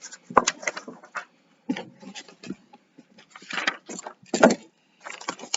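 Rummaging on a tabletop: paper rustling and small objects being moved and knocked about while someone searches for a pair of scissors, with two sharper knocks, one about half a second in and one near the end.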